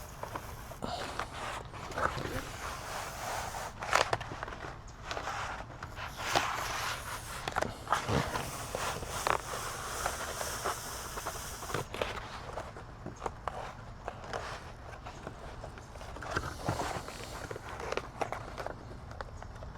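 Foam deck pad being peeled off a paddle board: a run of irregular crackling, tearing and handling noises.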